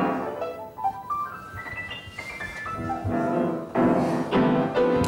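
Upright piano playing: a chord dies away, then a quick rising run of single notes, followed by several struck chords in the second half.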